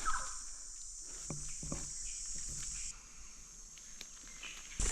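Steady high-pitched insect chorus in the bush, with faint rustling and a few light knocks. The insect sound drops away about three seconds in.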